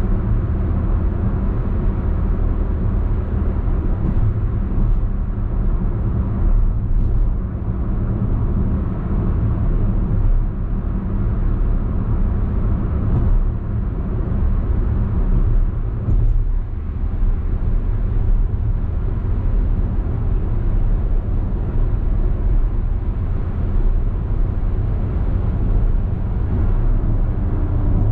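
Steady cabin noise of a Perodua Alza cruising at highway speed: tyre and road noise with a low engine hum underneath.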